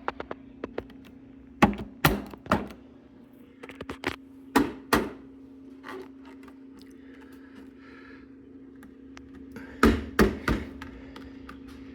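Plastic headlight bezel being pushed and knocked into place in a motorcycle's front fairing: a run of sharp knocks and clicks in three clusters, with the last group about ten seconds in.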